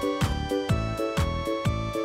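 Background music with a steady beat, about two beats a second, over sustained notes.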